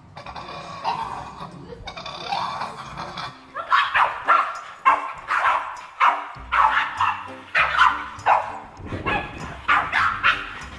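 A dog vocalizing in drawn-out calls, then barking repeatedly, about two barks a second, over background music.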